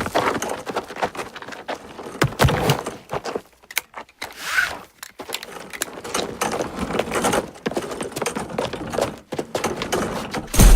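Irregular clatter of knocks and clicks, with a short pause about four seconds in.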